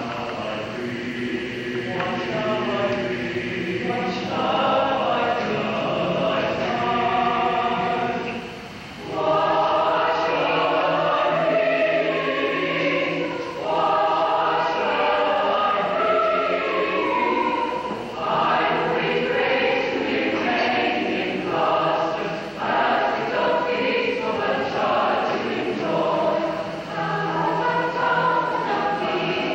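Mixed choir of men and women singing in parts, phrase after phrase, with a brief break about nine seconds in.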